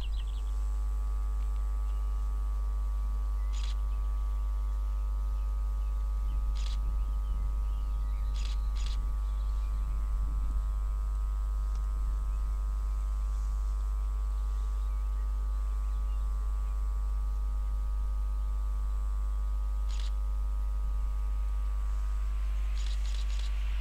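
Steady low hum made of several even tones, with a few short bird chirps. Near the end the rising rush of an approaching electric express train grows louder.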